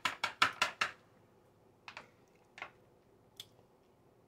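Metal spoon scooping into a coconut cream pie and clicking against its dish: a quick run of about seven clicks in the first second, then three lone clicks spread over the next two and a half seconds.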